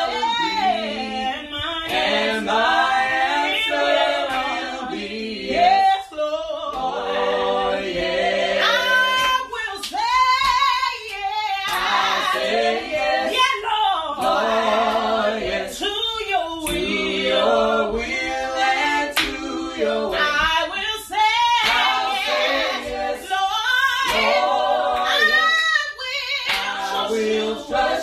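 Four mixed voices singing a gospel song a cappella in harmony, with a lead voice adding wavering runs and held notes.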